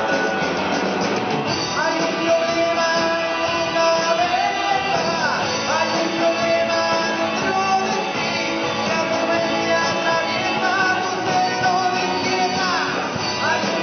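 Live rock band playing electric guitars over a drum kit.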